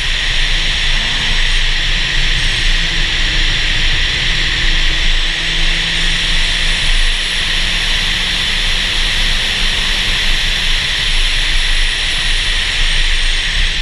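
A car driving steadily at speed, heard from a camera mounted on its outside: a loud, even rush of wind and road noise over a low rumble from the car.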